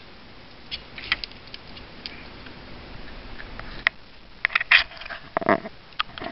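A raccoon moving about, its claws clicking and scratching in irregular bursts, with a denser flurry of clicks and a rustle about three-quarters through.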